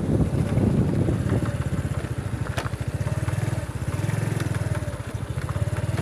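Small motorcycle engine running at a steady low speed, an even low throb of firing pulses as the bike rolls along, with a single click about two and a half seconds in.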